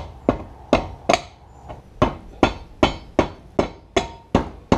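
Hammer blows on the steel tine assembly of a mini tiller, tapping it onto the gearbox shaft. About a dozen sharp, even strikes, two or three a second, each with a short metallic ring.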